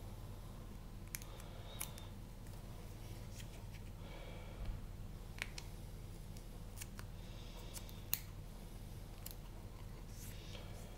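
Sharp scissors snipping rough bits off the edges of a moulded grinding tray: faint, separate snips spaced a second or so apart.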